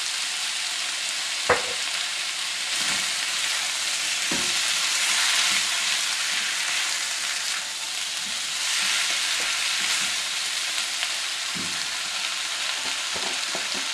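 Shrimp, eggplant and onion sizzling in oil in a nonstick wok, stirred with a silicone spatula. A sharp knock comes about a second and a half in, and a few softer knocks follow later.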